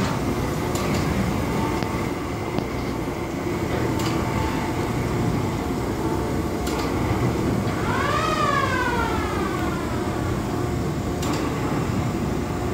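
Steady hum and rumble of a kiddie boat ride running, with a few sharp knocks, and about eight seconds in a short call that rises and then slides down in pitch.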